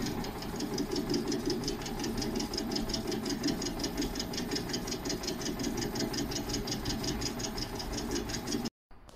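Metal lathe running, facing off the welded cast-aluminium boiler of an espresso machine: a steady machine drone with a fast, even ticking, which cuts off suddenly near the end.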